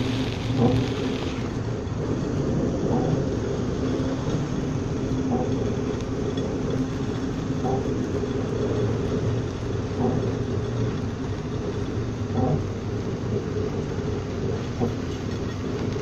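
Steady low hum and rumble of a bulk carrier's machinery heard inside the wheelhouse in heavy weather, with a faint tick about every two and a half seconds from the bridge window wiper sweeping. A brighter hiss of wind and spray fades after the first second or so.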